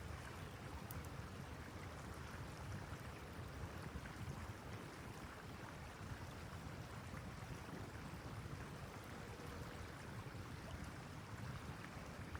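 Steady wind noise rumbling on the microphone, a blizzard gusting without a break.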